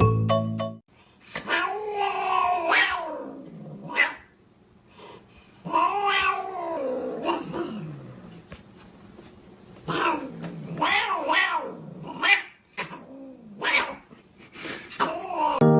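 A cat yowling in a string of long, drawn-out calls, each rising and then falling in pitch, with short pauses between them.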